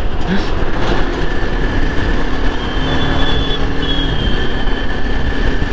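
Steady wind rush over the microphone, with the Yezdi Adventure's 334 cc single-cylinder engine running at cruising speed beneath it. A faint high whine sounds for about two seconds in the middle.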